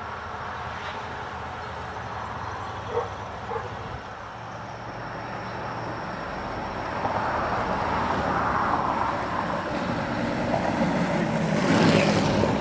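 A vehicle passing by: a steady rushing noise that grows louder through the second half and peaks near the end before falling away.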